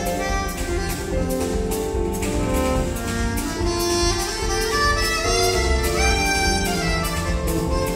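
Live jazz band playing: a saxophone melody over bass guitar, electric guitar, keyboards and drum kit, with a steady cymbal beat.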